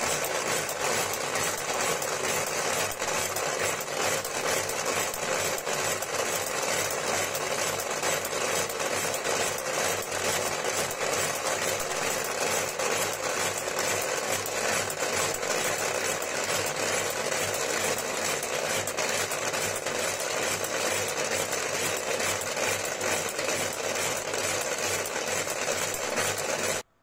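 Trezo 1000 Turbo automatic piston-type cigarette-tube filling machine running at its top speed of about 120 cigarettes a minute: a fast, steady mechanical clatter. It cuts off suddenly near the end.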